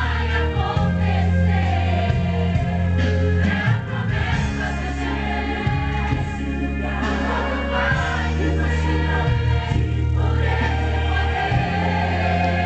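Gospel worship music: a choir singing over long held bass notes from a keyboard accompaniment.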